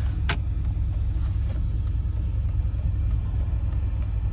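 Vehicle engine and exhaust drone heard from inside the moving vehicle, a steady low rumble, with one sharp click about a third of a second in.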